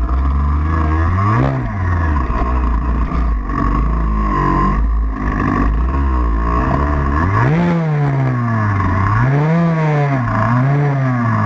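An off-road vehicle's engine is revved up and eased off again and again, its pitch rising and falling: once about a second and a half in, then in quick rises through the second half.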